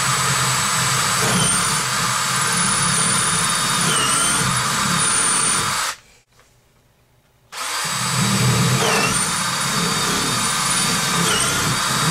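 Handheld electric drill boring out a cast brass hose fitting, stepping the hole up one bit size at a time. It runs, stops for about a second and a half a little before halfway, then runs again. Its whine dips briefly several times as the bit bites.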